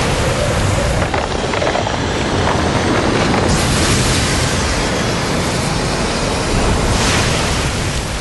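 Cartoon sound effect of a massive energy eruption: a loud, continuous rushing roar with a deep rumble underneath, as columns of light blast up from the ground. It surges about three and a half seconds in and again near the end.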